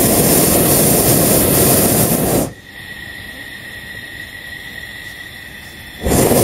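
A hot air balloon's propane burner firing in a long blast that cuts off sharply about two and a half seconds in. A second short blast starts near the end.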